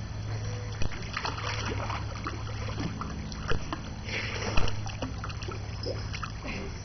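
Pool water splashing and lapping as people move in it, with a few sharper splashes, over a steady low hum.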